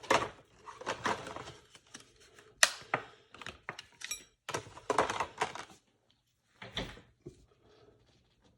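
Small objects being handled on a bench while cleaning a rifle: irregular clicks, taps and rustling. The sharpest click comes about two and a half seconds in, and a dull knock comes near seven seconds.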